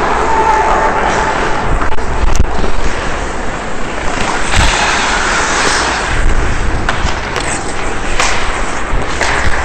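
Ice hockey skates scraping and carving across the ice, with wind rushing over the helmet-mounted camera's microphone. A few sharp clacks of sticks and puck come through.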